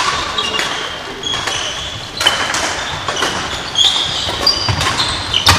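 Badminton being played on several courts: sharp racket strikes on shuttlecocks and short squeaks of sports shoes on the floor, echoing in a large hall.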